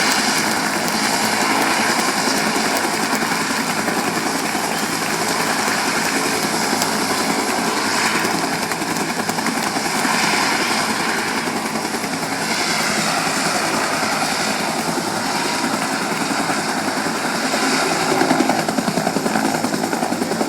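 Helicopter running close by, its rotor beating in a rapid, steady chop over the turbine noise.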